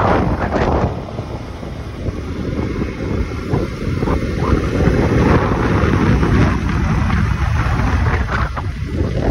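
Heavy wind rumble buffeting the microphone, mixed with road and vehicle noise, as when riding in open traffic.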